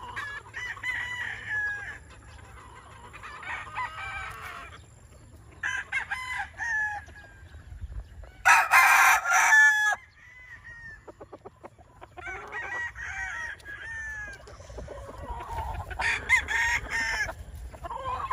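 Several gamefowl roosters crowing in turn, with clucking between the crows. The loudest crow comes about eight and a half seconds in and lasts about a second.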